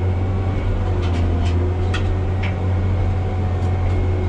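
Randon RG170B motor grader's diesel engine running steadily, heard from inside the cab as a low, even hum, with a few short sharp ticks in the first half.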